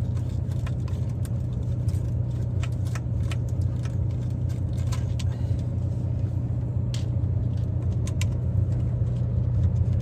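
A steady low rumble with scattered light clicks and clinks from handling small metal parts.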